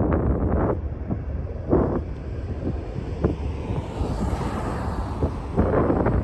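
Wind buffeting the microphone in gusts, with surges at the start, about two seconds in and near the end, over a steady low rumble.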